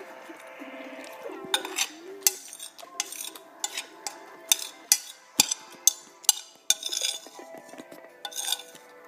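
A quick run of sharp metallic clicks and clinks, about a dozen, thickest in the middle, over faint steady music.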